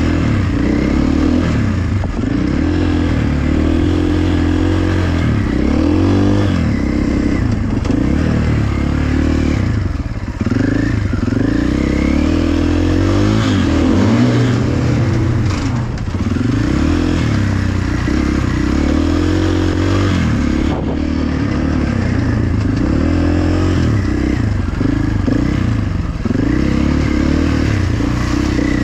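Dirt bike engine being ridden hard, its pitch climbing and falling again and again as the throttle is opened and closed through the gears.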